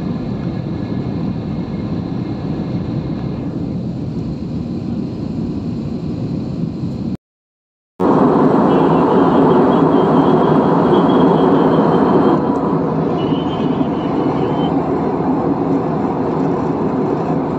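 Steady cabin noise of a jet airliner in flight, engines and rushing air heard from a window seat. It drops out for under a second about seven seconds in, then returns louder, easing off a little later on.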